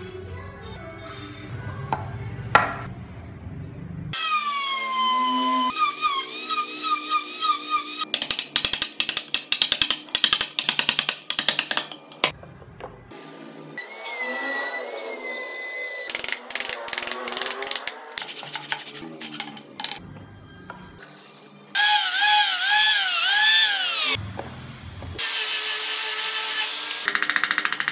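Small electric power tools working wood: the high-pitched whine of a handheld rotary carving tool, its pitch rising and falling as it bites into the wood, in several short stretches. Near the end comes the hissing whir of a random orbital sander. Before the tools start there are a few light knocks.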